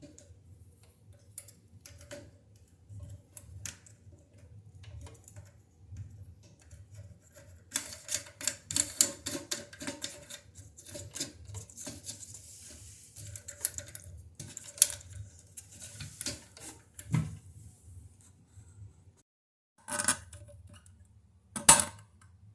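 Irregular clicking and clattering of small hard parts being handled, thickening in the middle with a brief hiss, and two louder clacks near the end.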